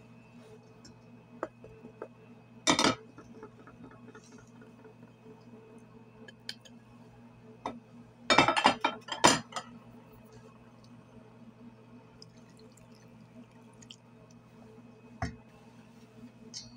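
Glass dishes knocking and clinking against a stainless steel mixing bowl as ingredients are tipped in: a few knocks about three seconds in, a quick flurry of clinks around eight to nine seconds, and one more knock near the end, over a faint steady hum.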